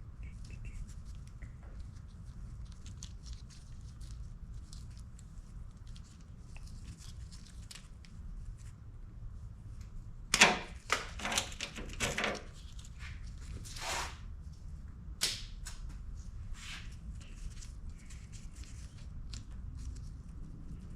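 Wiring being handled and fed through: rustling and light clicks, with a cluster of louder sharp scrapes and clicks about ten to twelve seconds in, over a low steady hum.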